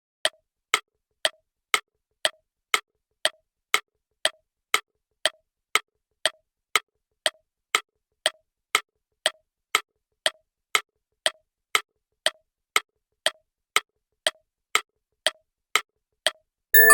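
Clock ticking sound effect counting down a timer, about two ticks a second in a tick-tock pattern. A bright chime rings at the very end as time runs out.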